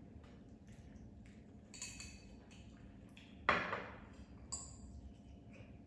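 Forks and spoons clinking and scraping against glass bowls of noodles during eating, with small scattered taps, a ringing clink about two seconds in and another about four and a half seconds in. A louder, sudden sound about three and a half seconds in is the loudest moment.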